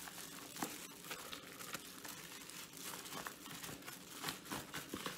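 Clear plastic food packaging and a disposable plastic glove crinkling and crackling irregularly as plant-based mince is squeezed out of the package into a bowl.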